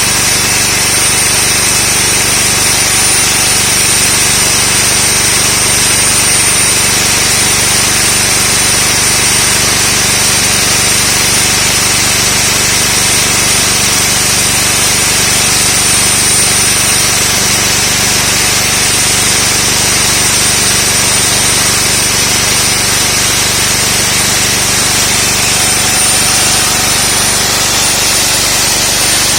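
Concrete core drill running steadily, its diamond core bit cutting into concrete with a continuous grinding noise and a thin high whine.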